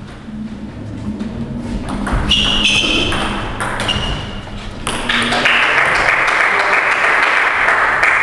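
Table tennis rally: the ball clicking back and forth off rackets and table, with a few short high squeaks between about two and four seconds in. From about five seconds in a loud, steady rush of noise takes over.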